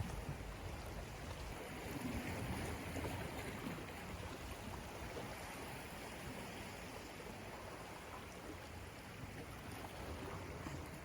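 Steady wash of sea water moving against the shore.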